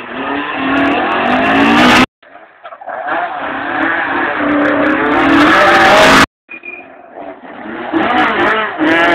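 Rally cars running flat out on a stage, engine notes growing louder as each car closes in. Three short passes are heard, each cut off abruptly.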